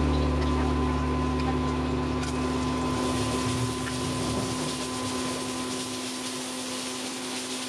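Chopped garlic and chilli sizzling in hot oil in a nonstick wok as they are stirred with a silicone spatula; the sizzle grows about two seconds in.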